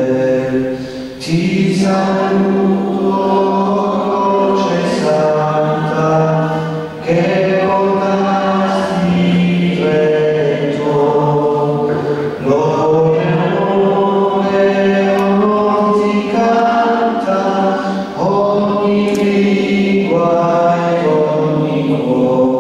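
Congregation singing a hymn together, phrase after phrase, with brief pauses for breath about every five or six seconds.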